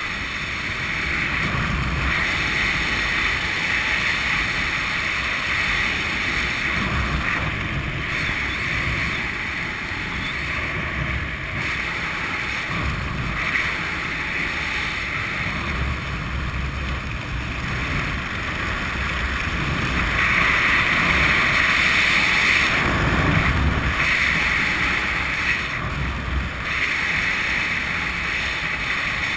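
Wind rushing and buffeting over a skydiver's camera microphone, a steady rush that swells and eases, loudest about two-thirds of the way through.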